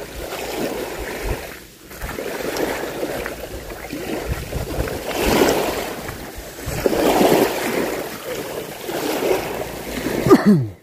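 Small waves washing along the shore, rising and falling in surges every second or two, with wind rumbling on the microphone.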